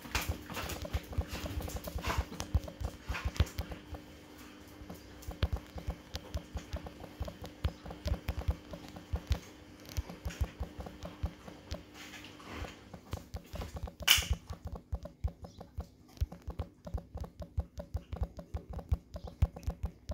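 Fast, irregular patter of taps from typing a message on a smartphone's touchscreen keyboard, several keystrokes a second. A faint steady hum underneath stops about two-thirds of the way through, and there is one brief, louder noisy rush soon after.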